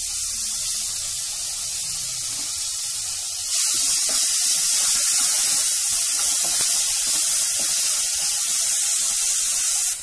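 Chopped tomatoes and shallots sizzling in hot sesame oil in a pan: a steady hiss that gets louder about three and a half seconds in, as the pan is stirred and steam rises.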